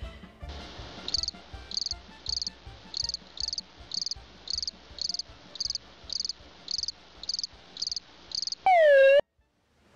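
Cricket-chirping sound effect, a short high chirp about every half second, standing in for the awkward silence while no call comes in. Near the end, a short loud sound-effect tone swoops down and back up in pitch, then cuts off abruptly.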